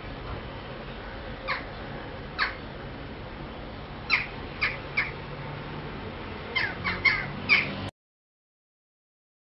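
Crows cawing in short single calls, then a quick run of four caws, over faint steady background noise. The sound cuts out abruptly about eight seconds in.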